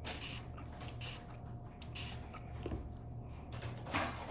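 Spray bottle squirting slime activator into glue, several short hissing spritzes, with a louder one near the end over a steady low hum.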